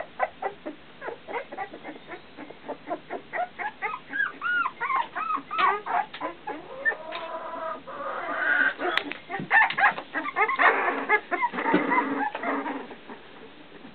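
A litter of two-week-old puppies squeaking and whining as they crawl about, many short high cries overlapping one another. The crying gets busier and louder about two-thirds of the way through, then eases off near the end.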